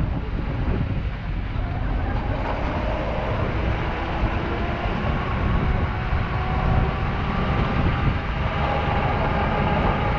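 Vehicle driving over a rough gravel dirt track: a steady low rumble of engine and tyres, with a faint whine that comes in about two seconds in.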